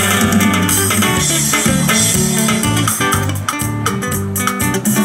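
Live band music without vocals: acoustic guitar strumming over electric bass and a drum kit with cymbals, keeping a steady rhythm.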